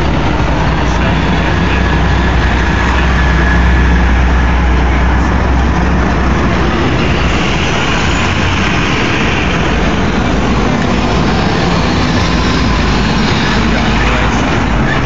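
FDNY fire trucks, a ladder truck and then an engine, driving past close by, their heavy engines rumbling deeply over city traffic noise. The rumble is loudest about four seconds in and eases after about seven seconds.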